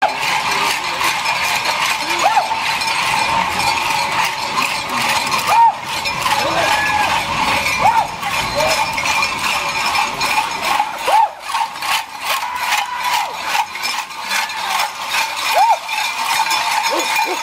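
Many cowbells worn by running carnival devil dancers clanging and jangling continuously. A heavy iron chain drags and clinks on the pavement, and voices call out now and then.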